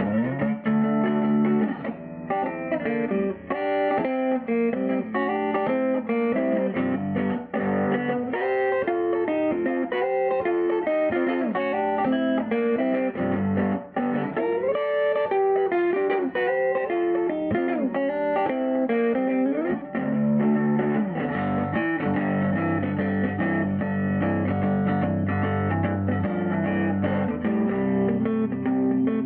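Electric guitar played through a 1951 Gibson BR-6 tube amplifier turned up loud: a continuous stretch of single-note lines and chords with several string bends.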